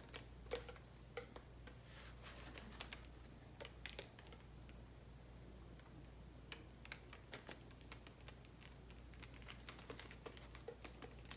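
Near silence with faint, scattered light clicks and taps from a resin-coated wooden cutting board being handled and tilted over a worktable, over a low steady hum.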